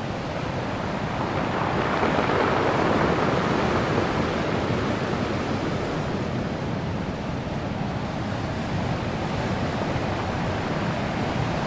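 Underwater ambience sound effect: a steady rushing noise of deep water that swells a couple of seconds in and then settles.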